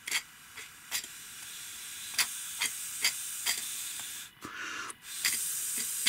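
Air hissing through a 3D-printed plastic vertical compressed-air engine blown into by mouth through a tube, with sharp clicks scattered through it; the hiss breaks off briefly about four seconds in and comes back louder. The engine is not running: the piston goes up but won't come back down, which the builder puts down to a too-light flywheel or a mechanism not loose enough.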